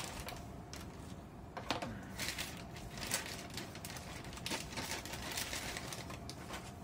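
Clear plastic bag crinkling and rustling in irregular bursts as it is pulled off a pneumatic air hammer, with a few light handling knocks.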